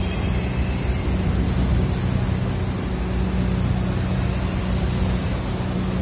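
Steady low engine drone, running evenly without change.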